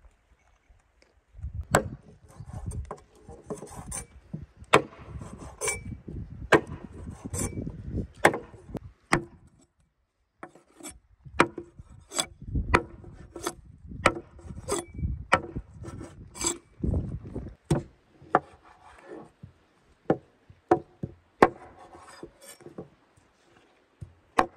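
Heavy cleaver chopping bone-in meat and then blocks of fat on a thick wooden board: irregular sharp chops, roughly one or two a second, with quieter handling noise between strokes and a short pause about halfway.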